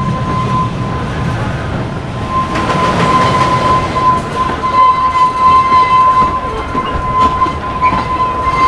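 A ride train rolling along its rails with a clattering of wheels, getting louder a few seconds in, over a steady high tone held throughout.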